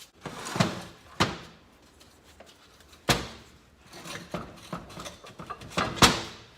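Four sharp, irregularly spaced knocks with softer clunks between them, the last one the loudest: metal tools and engine parts striking as the crankcase of a Polaris Sportsman 800 engine is worked apart.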